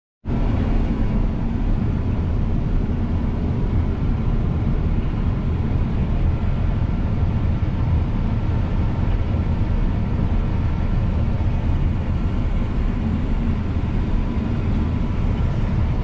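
Combine harvester heard from inside its cab while cutting oilseed rape: a steady, unbroken drone of engine and threshing machinery, heaviest in the low end, with a faint steady whine above it.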